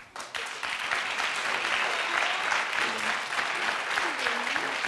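Studio audience applauding, building up about half a second in and carrying on steadily.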